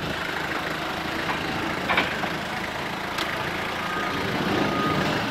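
Hyster forklift engine idling steadily, with a couple of short clicks about two and three seconds in and a faint steady high tone joining near the end.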